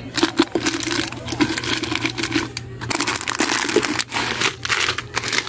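Plastic-wrapped biscuit packs crinkling and rustling in irregular crackles as they are handled and stacked on a shelf.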